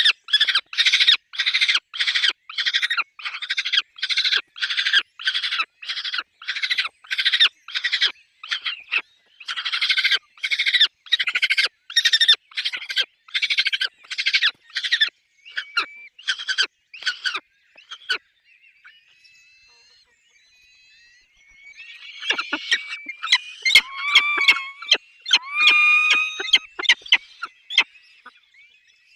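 Peregrine falcons calling at the nest: a long run of harsh, rasping calls at about two a second, then after a brief lull, higher squealing, whining cries near the end.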